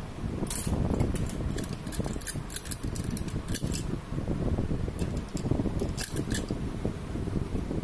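Light metallic clicks and clinks of small parts and a socket wrench being handled inside an opened rotary diesel injection pump, in scattered clusters, over a steady low background rumble.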